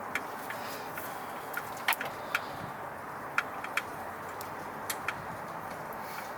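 Irregular sharp metallic clicks and taps, about ten of them, as seat-swivel bolts are handled and threaded in finger-tight, over a steady background hiss.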